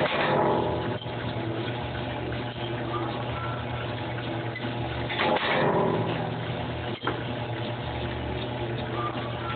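Punch press running with a steady motor hum, cycling as it stamps copper spoon-lure blanks into shape: a louder surge of noise lasting about a second comes at the start and again about five seconds in, with a sharp click about seven seconds in.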